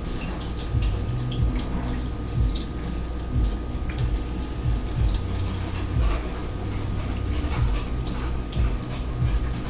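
Water running and splashing from an overflowing kitchen sink, a steady rush broken by many irregular drips and splashes.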